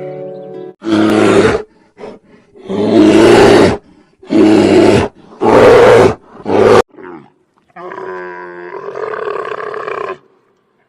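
An animal roaring: a run of loud roars, each lasting under a second, then a quieter, longer call about eight seconds in.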